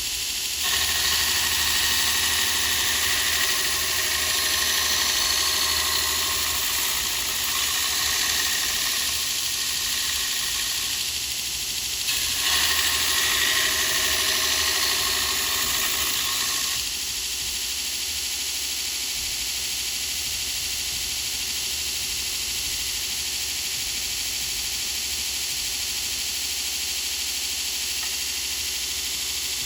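Electric grinder running steadily with a constant high whine, grinding metal and giving a harsher, louder sound for most of the first seventeen seconds. There is a brief let-up about twelve seconds in, and after that it runs lighter and steadier.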